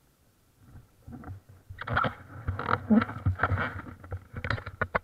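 Handling noise from an action camera being picked up and turned: irregular rubbing, knocks and rustles on the housing and microphone, starting about a second in and loudest in the middle.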